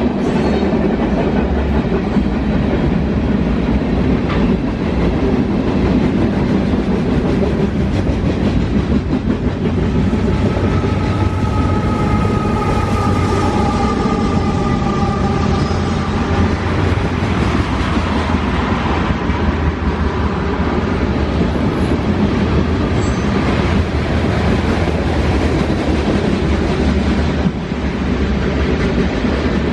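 Norfolk Southern freight train rolling past: a continuous rumble and clickety-clack of railcar wheels over the rails. Faint high steady squeal tones come in from about ten seconds to about seventeen seconds in.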